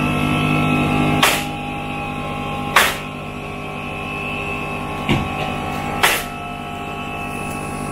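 Pneumatic framing nailer firing four sharp shots at irregular intervals during stud-wall framing, over a steady droning hum.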